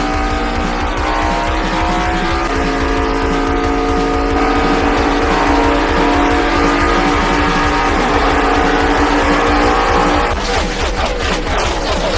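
NASCAR-style V8 stock car engines running flat out at high revs, a steady pitched drone that drifts slightly and steps up a little about two and a half seconds in. Near the end the sound turns rougher and choppier.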